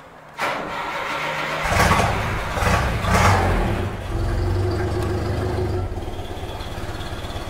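1977 Chevrolet Opala's 2.5-litre four-cylinder engine starting: the starter cranks and the engine catches after about a second, is revved up three times, then settles into a steady, evenly pulsing idle.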